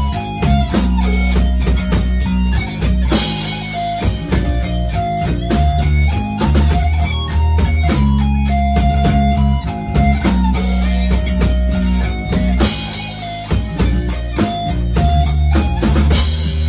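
Live rock band playing together in a rehearsal room: electric guitar and bass over a drum kit, with steady cymbal strokes and held low notes.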